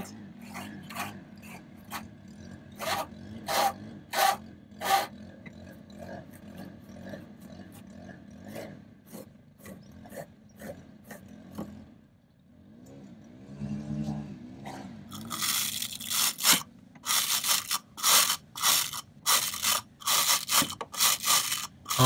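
Scrubbing strokes across the dirty fins of a window air conditioner's evaporator coil: a series of rough scrapes. They pause briefly about halfway, then come back louder at about two strokes a second.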